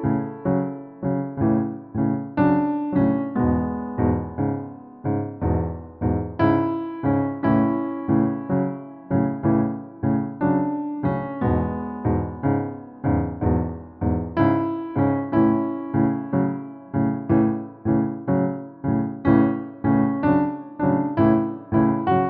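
Piano music: a steady run of struck chords and notes, each dying away before the next.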